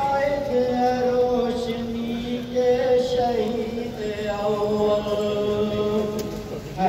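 A man singing a tarana (a patriotic anthem) in a slow, chant-like style, drawing out long held notes that step from one pitch to the next.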